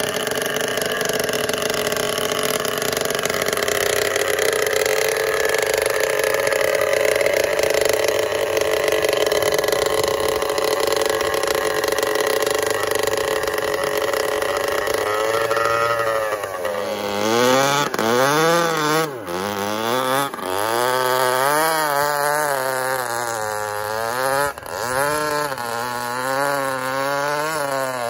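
Small chainsaw-type two-stroke engine of an RC pulling truck running at a steady high speed. About sixteen seconds in, its speed starts rising and falling over and over, roughly every second or two.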